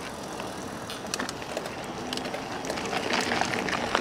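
Mountain bike rolling over a rough dirt and rock trail: tyres crunching on the surface, with scattered clicks and rattles from the bike, getting a little louder toward the end.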